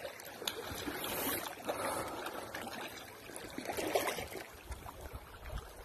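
Small waves lapping and sloshing in shallow lake water at the shore, coming in soft swells a couple of times.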